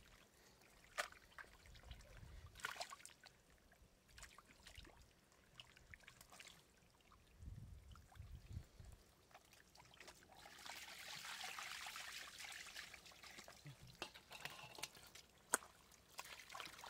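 Shallow water trickling and sloshing, with scattered small splashes and clicks. A longer stretch of splashing comes about ten to thirteen seconds in.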